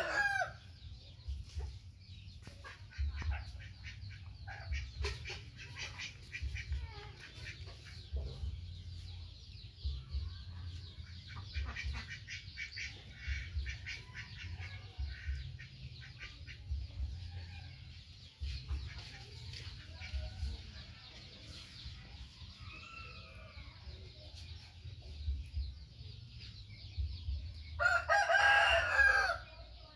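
A rooster crows once near the end, loud and drawn out, with scattered soft chicken clucks and small clicks before it.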